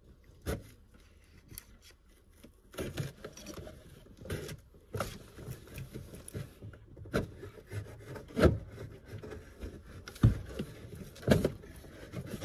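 Cardboard generator box being cut with a knife and torn open at the side: rough scraping and rubbing of cardboard, broken by several sharp thumps and knocks.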